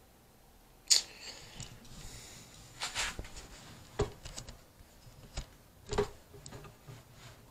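Scattered handling knocks and clicks, the loudest a sharp knock about a second in, with further clicks near the middle and toward the end.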